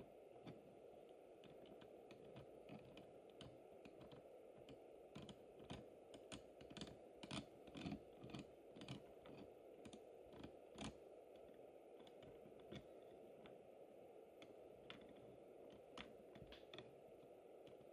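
Faint irregular clicking and ticking from the working OO-scale model crane's mechanism as its jib is lowered, thickest in the middle, over a faint steady hum.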